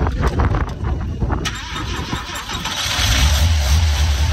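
Mazda RX4's rotary engine cranking on the starter, then catching about a second and a half in and settling into a steady, deep running note. This is its first start after sitting unused for many years.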